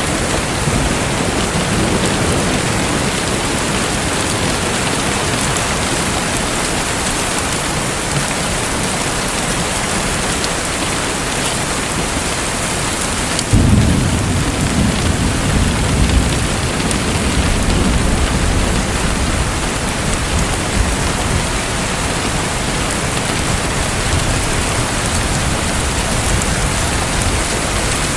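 Steady heavy rain hiss. About halfway through, a deep rumble of thunder comes in suddenly and keeps rolling.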